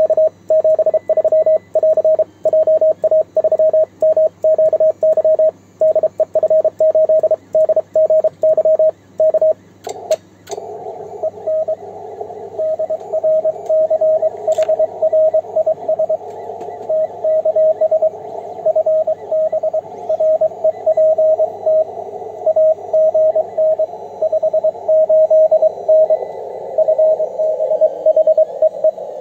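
Morse code from an amateur radio transceiver on 28 MHz. For the first ten seconds or so the operator's own keying on a single-lever paddle sounds as a clean sidetone with silent gaps. After a couple of clicks the receiver opens onto band hiss, and Morse code keeps coming through the noise, the reply of the other station.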